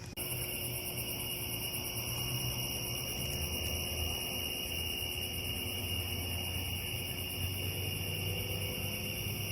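Evening chorus of crickets and other insects, steady high-pitched trilling in several layers, over a low rumble.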